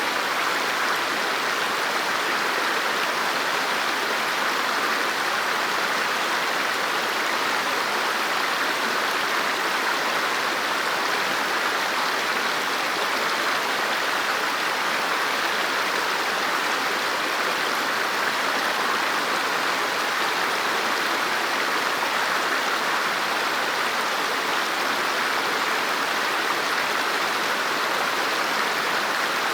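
River water flowing over rocks: a steady, even rushing with no breaks.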